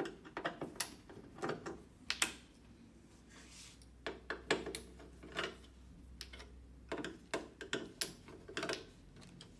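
Screwdriver working at a TV's plastic backlight reflector sheet and the metal panel beneath it: irregular sharp clicks, taps and crinkles as the sheet is freed from the backlight.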